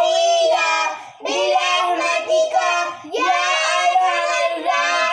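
Three children singing together in long held phrases, with short breaks for breath about a second in and about three seconds in.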